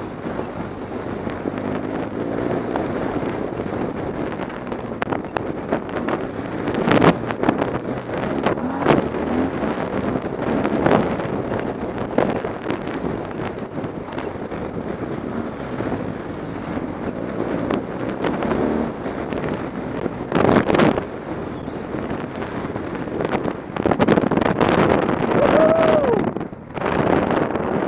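BMW R 1200 GS Adventure flat-twin motorcycle running at speed over a rough gravel track, mostly heard as wind buffeting the camera microphone, with a few knocks from the bike jolting over stones. Near the end the engine note rises and falls, then the sound briefly drops.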